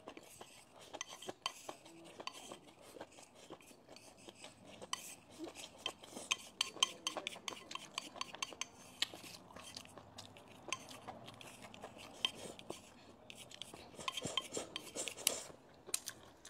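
Wooden chopsticks tapping and scraping against a bowl as rice and stir-fry are shovelled from it and eaten: many quick clicks, coming in flurries about five seconds in and again near the end.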